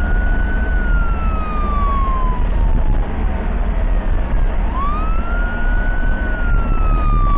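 Ambulance siren in a slow wail. A tone rises quickly, holds briefly and then falls slowly, twice, over the steady low rumble of the ambulance driving on the highway.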